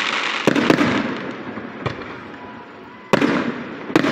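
Aerial fireworks exploding: dense crackling that fades away, with sharp bangs about half a second in and two loud bangs near the end.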